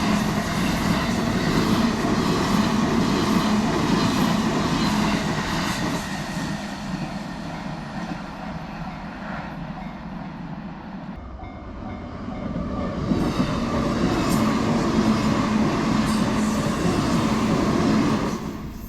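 Train running past on the Sobu Main Line, a dense rumble of wheels on rail. It is loud for about six seconds, eases for a few seconds, swells again about thirteen seconds in, then drops away sharply just before the end.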